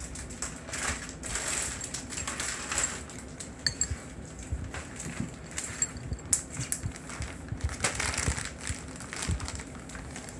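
A cat crunching hard, dry uncooked spiral macaroni from a bowl, giving a string of irregular crunches and sharp clicks.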